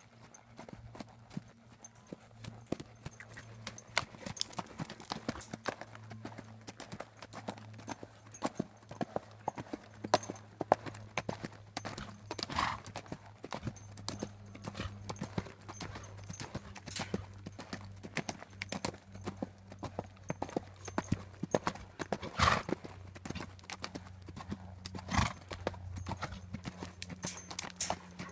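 A young horse's hooves beating on the dirt surface of a round pen at trot and canter: a steady run of soft clip-clop footfalls. A few short, louder sounds come about twelve seconds in and twice near the end.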